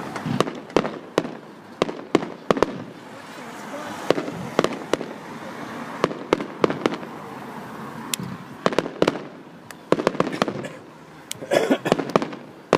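Fireworks going off: a run of sharp, irregularly spaced bangs and cracks, bunching into a quick cluster of crackles near the end.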